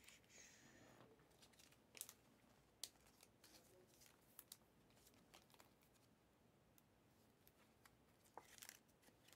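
Faint clicks and rustles of basketball trading cards being handled and slid against one another, with a short scraping rustle just after the start.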